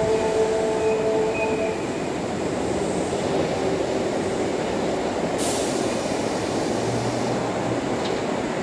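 Kintetsu 7000 series train pulling slowly into the platform: rumbling wheel and track noise, with steady whining tones for the first couple of seconds that then stop, and a short hiss about five seconds in.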